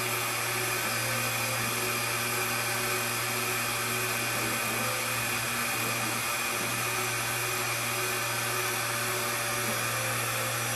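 ProLIGHT 1000 CNC milling machine running a test G-code program under its new Mach3 controller: a steady motor whine and hum, with fainter tones coming and going.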